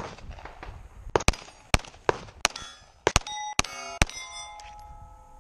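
A fast timed string of pistol shots at steel target plates, each hit answered by a metallic clang. The last plate, hit about four seconds in, rings on in a steady tone for more than a second.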